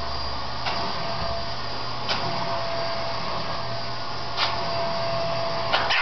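Vacuum cleaner running steadily with a thin steady whine, with a few short sharp knocks spaced through it.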